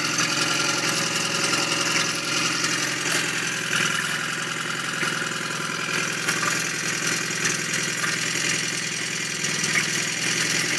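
1997 Mariner 9.9 hp four-stroke outboard motor idling steadily, its leg in a test barrel of water, after settling to idle.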